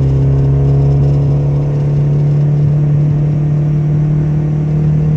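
1997 Honda Civic's engine running at a steady speed while the car is driven, a constant low drone with a steady pitch.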